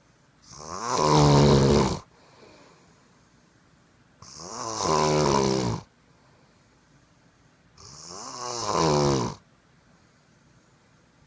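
A man snoring: three loud snores at an even pace, about one every three and a half seconds. Each snore swells and then cuts off, with quiet breathing between.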